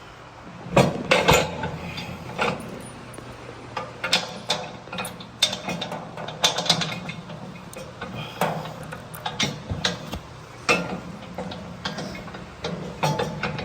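Irregular metal clicks and clanks of a bolt being worked and fiddled through a drum mower's hitch bracket, loudest about a second in, over a faint steady low hum.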